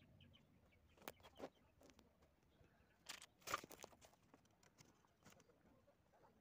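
Quiet handling of a cardboard skincare box and its honeycomb kraft-paper packing: a few sharp paper crinkles and taps, the loudest about three and a half seconds in.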